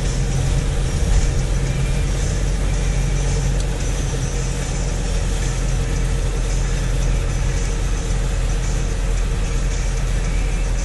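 Vehicle engine running steadily under a constant rushing noise as the vehicle drives through floodwater on a flooded road.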